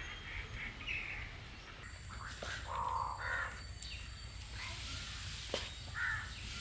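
Crows cawing: several short, harsh caws near the start, around three seconds in and again about six seconds in. There is a sharp click about five and a half seconds in, over a low steady background rumble.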